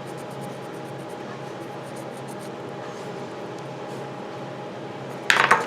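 Steady background hum, then near the end a sharp clatter as a small hard piece of the key fob remote knocks onto the tabletop.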